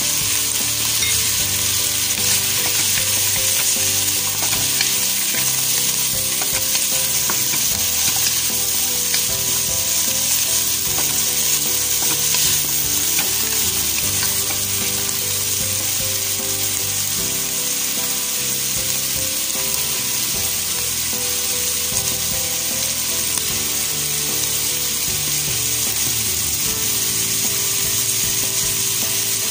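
Shredded chicken, sliced hot dog and carrots sizzling steadily as they sauté in butter in a nonstick pan, with a wooden spatula stirring through them.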